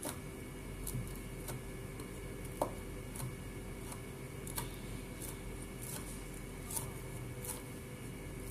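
Cleaver chopping dried shrimp on a wooden cutting board: irregular knocks of the blade on the board, roughly one or two a second, with one sharper knock near the middle. A steady hum runs underneath.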